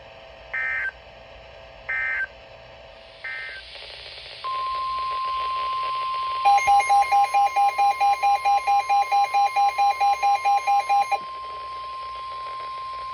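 Emergency Alert System signalling over weather radio: three short bursts of warbling data tones, the end-of-message code that closes the warning, then a long steady single-pitched alert tone begins. A fast electronic beeping of about four beeps a second joins the tone for about five seconds.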